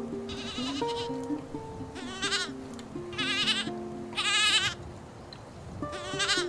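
A young goat bleating five times, high, quavering calls of about half a second each, a second or so apart. Light plucked-string music plays underneath.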